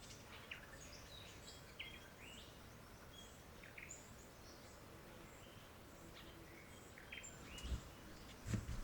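Faint rainforest birdsong: many short chirps and whistles from several birds, scattered throughout, over quiet forest ambience. A couple of soft low thumps near the end.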